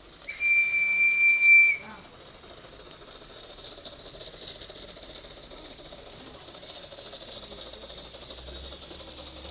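Whistle of a live-steam garden railway locomotive blown once: a single high, steady note lasting about a second and a half, followed by a steady hiss.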